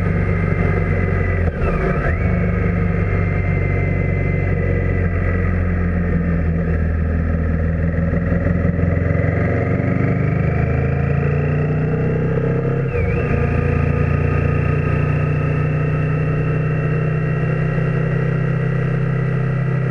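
Motorcycle engine running steadily at cruising speed with wind and road noise, picked up by the microphone of a Garmin VIRB Ultra 30 action camera. The engine note dips briefly and resettles about two-thirds of the way through.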